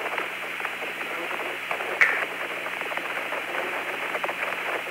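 Hiss and static of the Apollo 16 air-to-ground radio channel between transmissions, with a brief click about two seconds in.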